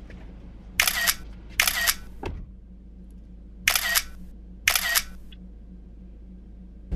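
Four camera shutter clicks as photos are taken, in two pairs: two about a second in, less than a second apart, then two more about a second apart near the middle.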